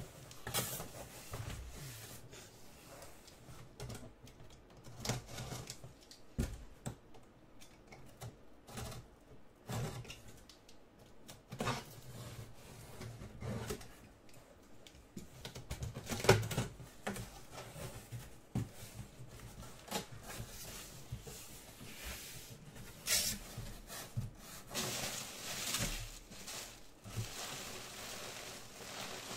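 Cardboard boxes being handled and opened: irregular knocks, taps and scrapes of cardboard, the sharpest about halfway through. Near the end, a longer rustle of bubble wrap and plastic packaging being pulled about.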